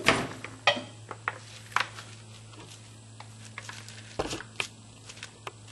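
Handling noise: scattered clicks, knocks and rustles close to the microphone while the camera is being positioned, with a heavier thump about four seconds in, over a steady low hum.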